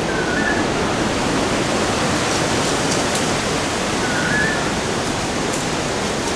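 Waterfall rushing in a steady, even roar of falling water. A short chirp cuts through it twice, about four seconds apart.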